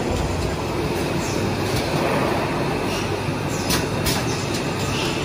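Paper cutlery molding machine running: a steady mechanical clatter over a low hum, with sharp clicks several times in the second half.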